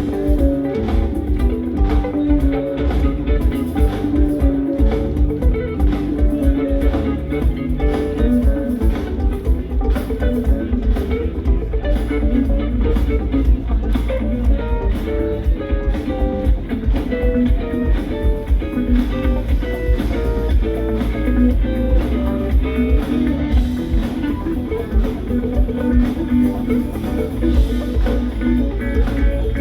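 Live rock band playing an instrumental passage: quick runs of electric guitar notes over bass guitar and a drum kit.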